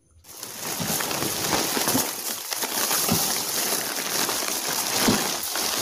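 Thin plastic shopping bag and foil snack packets rustling and crinkling as they are handled and pulled out, a steady irregular crackle.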